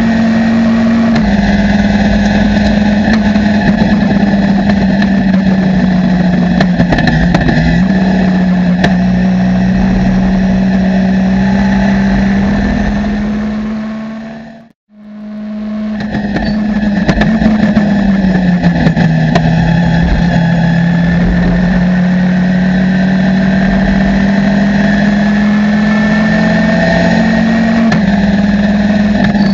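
Ginetta G40 race car's engine heard from inside the cockpit, held high in the revs at a near-steady pitch with a few brief dips. The sound fades out and back in about halfway through.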